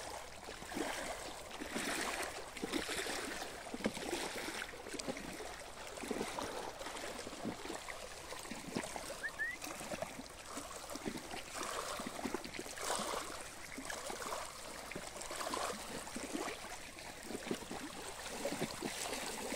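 Small waves lapping and gurgling against a reservoir's shallow shoreline, in irregular swells.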